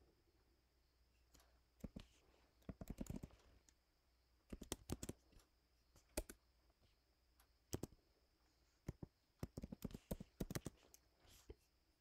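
Faint computer keyboard typing: single keystrokes and short quick runs of keys with pauses between them.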